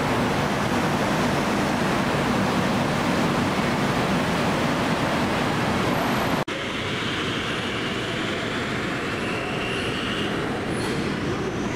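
Bangkok BTS Skytrain electric train at an elevated station platform: a steady, heavy rumble that cuts off abruptly about six and a half seconds in. It gives way to a lighter train noise with thin high whines, one rising in pitch near the end.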